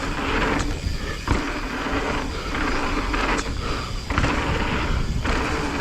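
Mountain bike tyres rolling fast over a dirt trail, with rushing noise that swells and dips and a faint steady hum. Sharp knocks about a second in and again past the halfway point, as the bike hits bumps.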